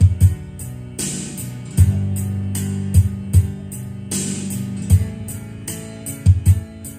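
Karaoke backing track playing from a karaoke player: music with a steady beat.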